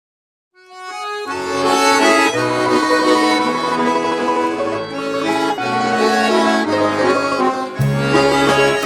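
Instrumental music led by an accordion: it enters about half a second in with a single held note, and about a second later chords and a bass line join in a slow, steady melody.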